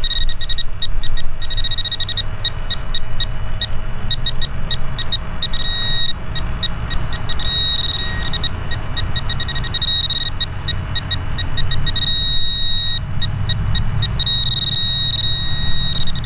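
Handheld metal-detecting pinpointer beeping in quick pulses as it is probed through a pile of dug soil, the pulses running together into a steady tone at times: it is signalling a metal target still in the dirt. A low rumble of the dirt and gloves being handled runs underneath.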